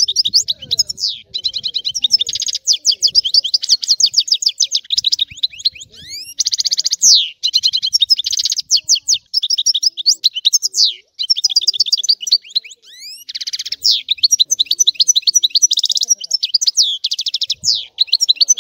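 European goldfinch singing a long, rapid twittering song of fast trills and liquid notes with a few rising whistled glides, broken by short pauses about eleven and thirteen seconds in.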